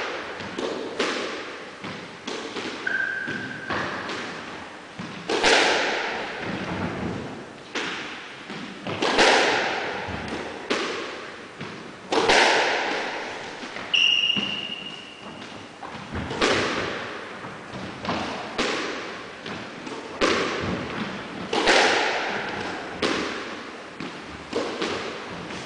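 Squash rally: the ball is struck hard every second or two, each hit echoing around the enclosed court, with two short squeaks in between.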